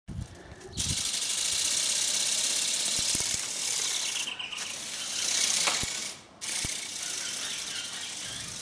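The electric motor and gearbox of a Phoenix E-Bird RC ornithopter running, a fast, steady ratcheting whirr of gears driving the flapping wings. It dips briefly twice.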